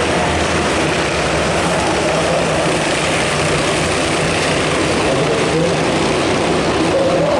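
Engines of a pack of small oval-track race cars running together at racing speed: a steady, unbroken din with several engine notes wavering up and down as the cars go round.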